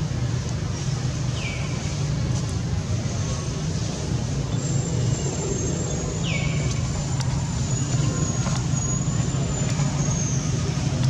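Steady low, engine-like background hum with a murmur of distant voices. Two short high squeaks fall in pitch, about 1.5 and 6 seconds in, and a thin high whistle wavers from about the middle on.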